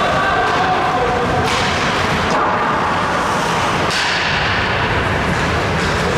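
Ice hockey game sound in a rink: a steady wash of skating and crowd noise with faint distant voices, and three sharp knocks, about a second and a half, two and a half and four seconds in.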